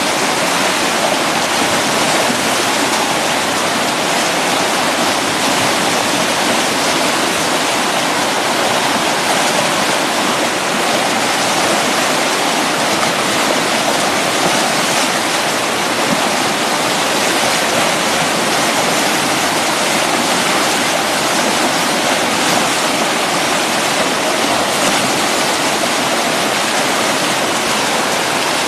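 River rapids: whitewater rushing loudly and steadily close by, with no let-up.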